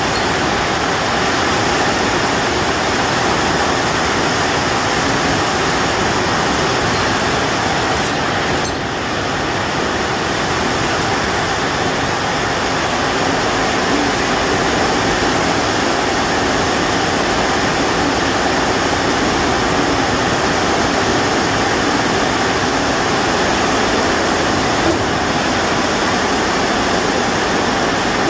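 Heavy rain falling on a corrugated sheet-metal roof: a loud, steady, unbroken rush of noise.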